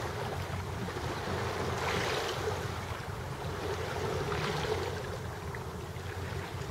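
Small waves washing against shoreline rocks, swelling twice into a brighter splash, about two seconds in and again about four and a half seconds in, over a steady rumble of wind on the microphone.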